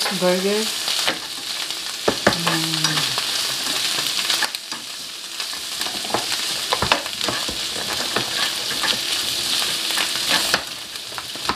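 Sliced onions and mushrooms sizzling in butter in a frying pan, a steady hiss, with repeated short scrapes and taps of the spatula against the pan as they are stirred.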